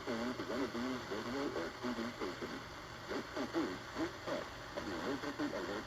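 Faint, muffled speech from a broadcast, too weak to make out, over a steady hiss.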